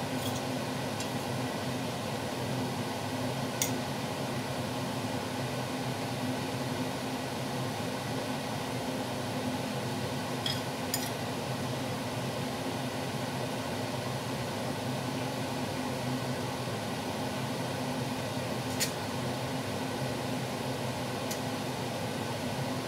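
Metal tongs clinking a few separate times against a frying pan and plate as noodles are lifted across, over a steady mechanical hum.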